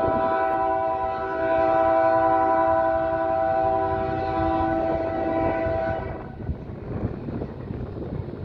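Diesel freight locomotive's air horn sounding one long chord of several notes, cutting off about six seconds in, leaving the rumble of the passing train.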